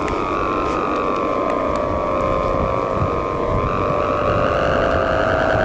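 Balinese kite hummer (guwangan) droning in strong wind: a steady, reedy multi-pitched tone that wavers and shifts slightly in pitch with the gusts, over wind rumble on the microphone.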